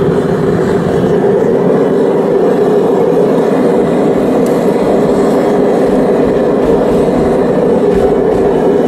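Gas forge burners running, a loud, steady rushing noise that does not change.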